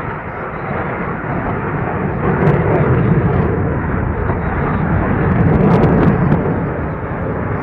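Loud engine noise of a jet aircraft flying past, a steady rush that swells twice, about two and a half seconds in and again near six seconds.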